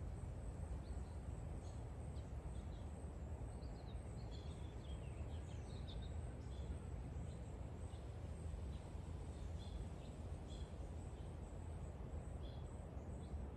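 Outdoor garden ambience: a steady low rumble with scattered short, high bird chirps, busiest around four to six seconds in.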